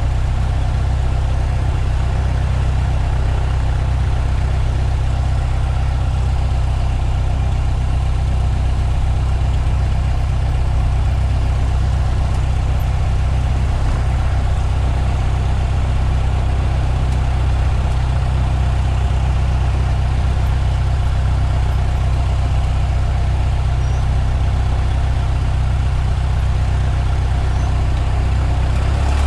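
Cessna 152's four-cylinder Lycoming engine running steadily at idle, low power as when taxiing after landing.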